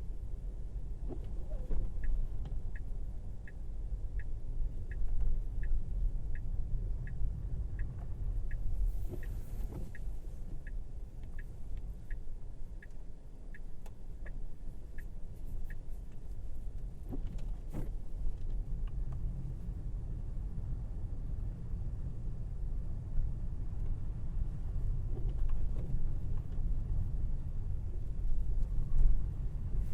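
Steady low road and tyre rumble of a Tesla Model Y, an electric car with no engine note, driving on a snowy road. A sharp turn-signal tick goes about twice a second for roughly fourteen seconds, starting about two seconds in and stopping midway.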